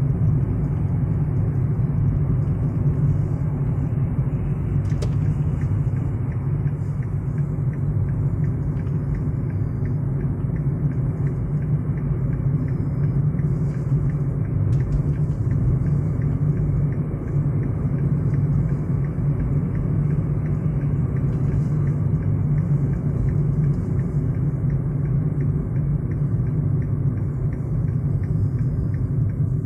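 Steady low rumble of a car driving, heard from inside the cabin: engine and tyre noise.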